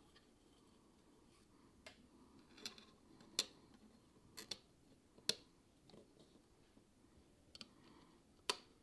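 Sharp light clicks and taps of 3D-printed plastic model parts being handled and pressed together, about eight at irregular intervals over otherwise quiet room tone.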